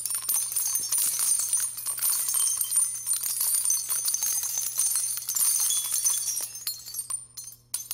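Jingling, bell-like shimmer of many small rapid strikes over a steady low hum. It thins out and stops near the end.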